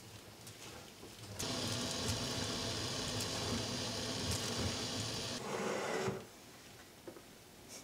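Cheese rasping against a stainless-steel box grater in rapid, even strokes. It starts abruptly about a second and a half in, runs steadily, and stops about four seconds later.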